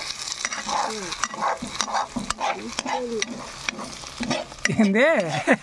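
Steel spatula stirring and scraping sliced bitter gourd frying in a pan, with repeated clinks of metal on the pan over a light sizzle. A short wavering voice-like call comes near the end.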